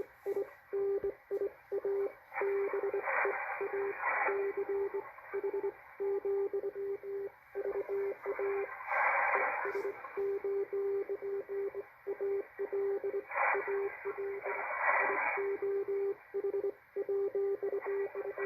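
Morse code (CW) signal on the shortwave 40 m band, played through a Malachite DSP SDR receiver: a steady-pitched tone keyed on and off in dots and dashes over band hiss, with several brief surges of static.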